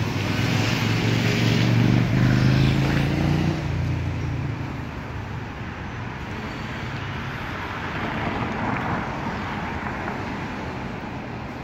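A road vehicle's engine passing close by, loudest about two to three seconds in and fading out by about four and a half seconds, then steady city traffic noise.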